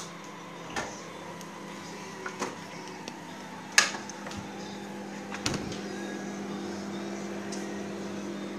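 Microwave oven humming steadily while heating a mug of milk for cocoa. A few clicks and knocks sound over the hum, the sharpest about four seconds in.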